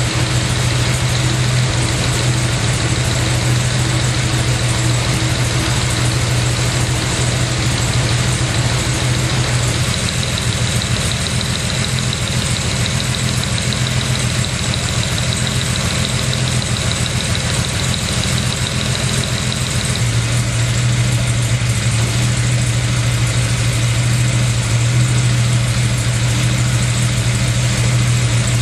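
Freshly rebuilt Jaguar 4.2-litre XK straight-six engine running steadily on a test stand, breathing through three twin-choke carburettors with open velocity stacks.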